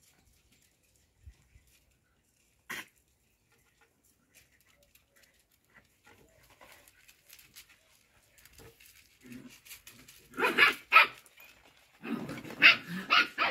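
Cocker spaniel puppies barking in play: mostly quiet at first, then two sharp yaps about ten seconds in and a burst of barking near the end.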